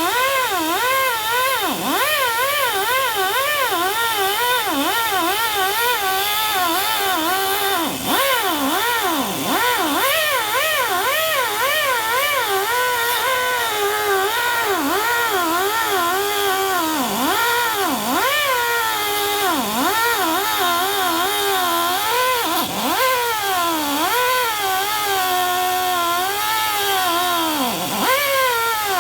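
High-speed power grinder cutting metal, a steady high whine whose pitch keeps wobbling and repeatedly drops sharply and recovers as the tool is pressed into the cut and eased off.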